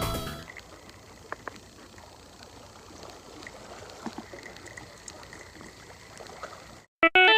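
Faint trickle of water with a few small clicks. Background music fades out at the start and comes back in just before the end.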